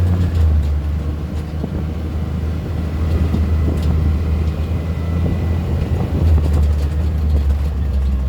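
ATV engine running steadily under way, heard from on board as a loud low drone with some rattling over the trail.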